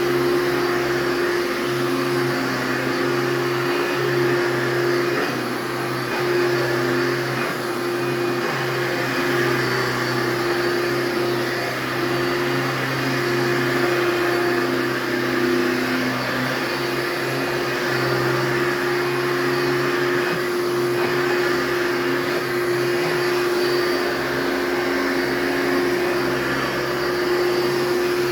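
Hoover Dimension Limited upright vacuum cleaner running steadily: an even motor hum with a steady whine over the rush of air.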